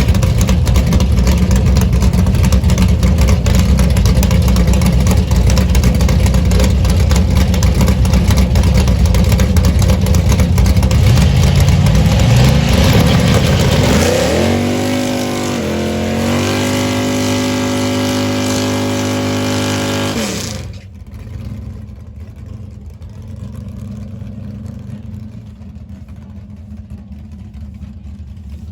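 Chevrolet 409 V8 in a drag car running loud, rising in pitch about twelve seconds in, then holding a steady pitch. It cuts off sharply about twenty seconds in, leaving much quieter background noise.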